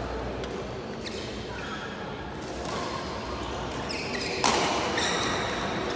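Badminton rackets striking a shuttlecock during a rally: a few sharp hits, the loudest about four and a half seconds in, ringing in a large sports hall over faint voices.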